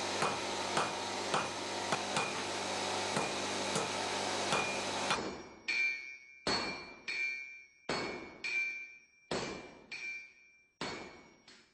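Smith's hammer striking hot iron on an anvil, about two blows a second over a steady workshop hum. About five seconds in, the hum stops and separate hammer-on-metal blows continue, each ringing clearly and dying away.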